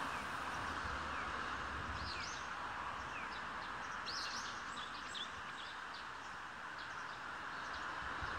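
Outdoor ambience of small birds chirping now and then, in short high calls that cluster about two to five seconds in, over a steady background hiss.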